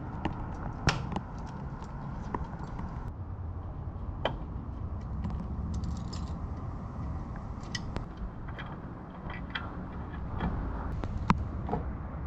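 Scattered clicks and metallic clanks of hand tools and metal crash-bar parts being handled on the motorcycle, over a low steady rumble, with two sharper knocks about a second in and near the end.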